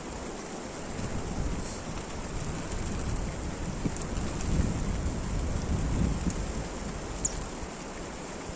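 Steady rain hiss with a few light drop ticks. Under it, a low rumble swells through the middle and fades out.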